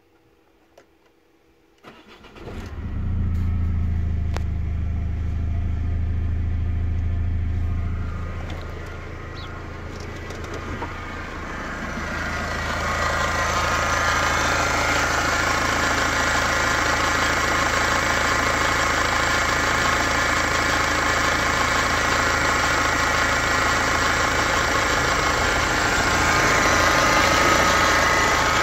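Peugeot/Citroën 2.0 HDi RHS four-cylinder common-rail turbodiesel is cranked and starts about two seconds in, then runs at idle with a steady low hum. The hum eases off after several seconds. From about twelve seconds in the idling diesel is heard up close in the open engine bay, louder and brighter.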